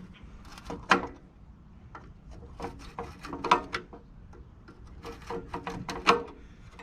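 Clicks, taps and knocks of an old truck heater's parts being handled and worked on by hand, in three clusters of quick strikes and scrapes.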